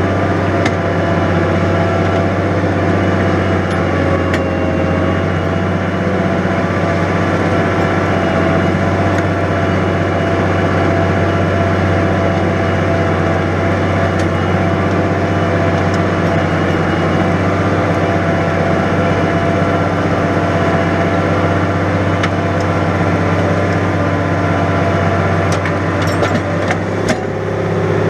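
New Holland 100-90 tractor engine running steadily under load while ploughing wet ground, its note dipping briefly near the end, with a few clicks and knocks.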